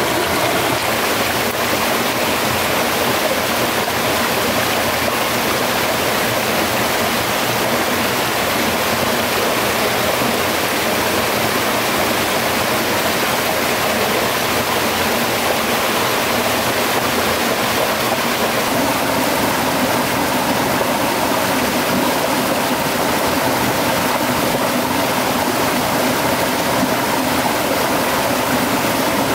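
A stream's water rushing steadily, an even hiss with no breaks and a slight change in tone about two-thirds of the way through.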